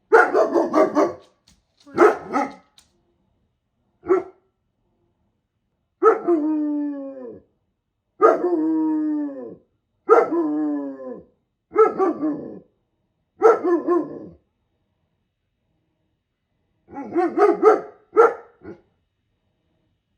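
German Shepherd barking in short bursts, with three longer drawn-out cries falling in pitch in the middle, and a quick cluster of barks near the end.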